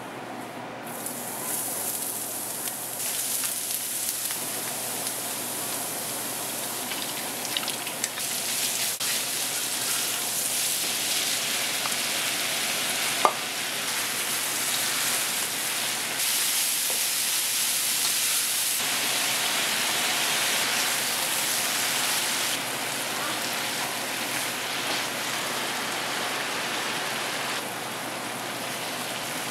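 Eggplant, red bell pepper, ground chicken and spinach sizzling in hot vegetable oil in a wok as they are stir-fried. A steady hiss sets in about a second in and jumps in level several times, with one sharp click near the middle.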